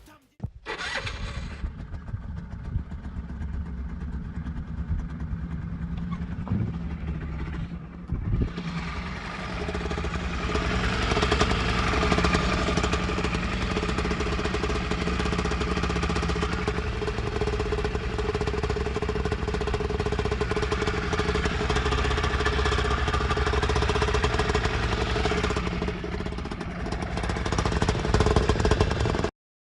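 Yamaha BW's scooter engine running: steady and fairly quiet at first, then louder and fuller from about eight seconds in, holding steady with a short dip and a rise again near the end before it cuts off abruptly.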